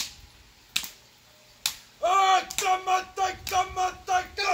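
Two male dancers performing a haka: three sharp slaps of hands on the body in the first two seconds, then loud rhythmic shouted chanting in unison from about two seconds in.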